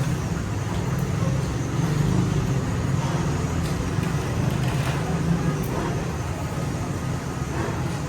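Steady low mechanical rumble, like running workshop machinery, with a few faint clicks over it.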